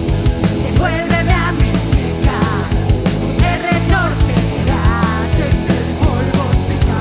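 A rock band playing a song with drums, bass and guitars, with a singing voice coming in and out over it.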